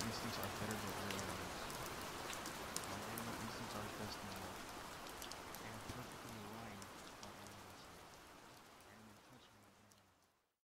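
Recorded rain falling steadily, with scattered sharp raindrop ticks, gradually fading out over the last few seconds and then cutting off.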